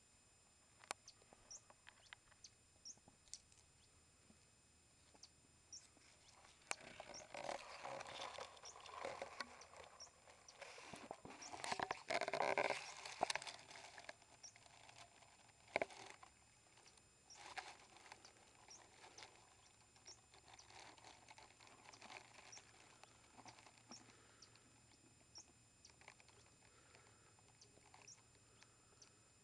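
Dry grass stems rustling and scraping against the camera as it is moved through them, with scattered clicks. The rustling is loudest about halfway through, with one sharp click soon after.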